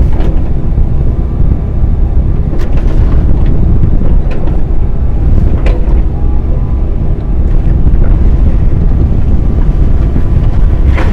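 Diesel engine of a compact excavator running steadily, with a few short clicks and knocks on top.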